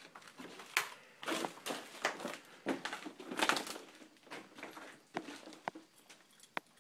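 Footsteps crunching and rustling on a gritty floor, with a few sharp clicks in the second half.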